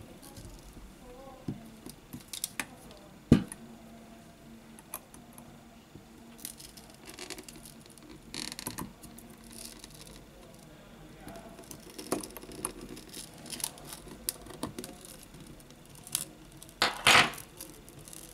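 Scattered light clicks, taps and short scrapes of hands and a metal tool working on a smartphone's frame. The sharpest tap comes about three seconds in, and a longer scrape comes near the end.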